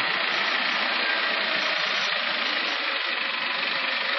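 A forklift's engine running steadily as the forklift drives closer.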